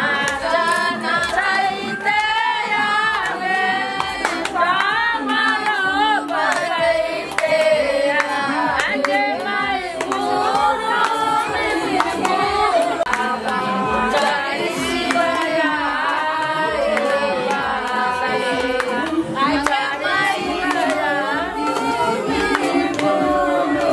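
A group of women singing a wedding song together, clapping their hands in time.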